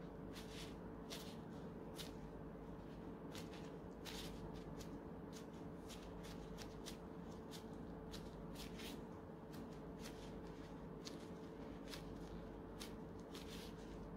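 Clear plastic disposable glove crinkling in many short, irregular crackles, a few a second, as the fingers fold and pinch a qatayef pancake closed, over a faint steady hum.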